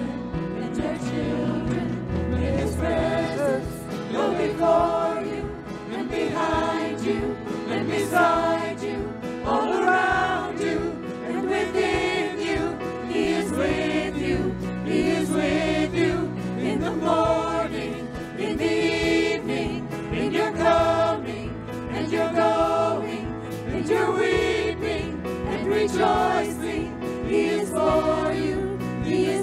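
Live worship band with a vocal team singing a slow congregational worship song, several voices together over keyboard, drums and guitar.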